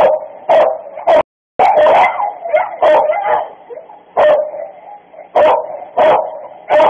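Guard dogs barking excitedly, short loud barks coming about once or twice a second: excitement at their owner's return. A brief moment of dead silence cuts in about a second in.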